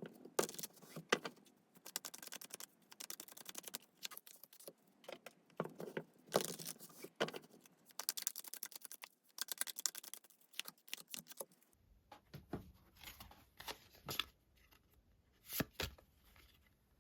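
Tarot cards being shuffled and handled, a dense run of rapid paper clicks and rustles; about twelve seconds in the handling thins to scattered clicks over a faint low hum.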